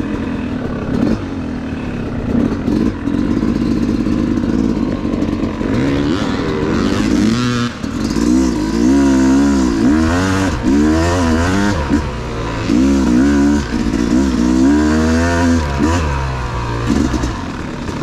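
Yamaha YZ250 two-stroke dirt bike engine running under the rider, fairly steady at first, then revving up and falling off again and again from about six seconds in as the throttle is worked over rough trail.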